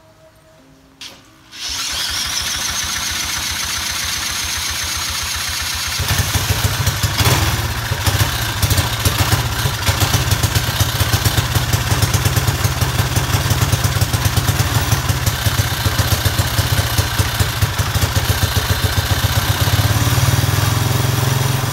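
Briggs & Stratton single-cylinder flathead engine starting about a second and a half in and then running with a rapid, even firing beat that becomes much stronger about six seconds in. The engine has freshly lapped valves and now runs on its own compression.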